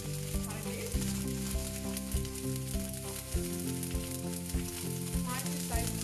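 Hot oil sizzling and spitting in a wok as ginger garlic paste fries and curry leaves are dropped in. Background music with a steady beat plays over it.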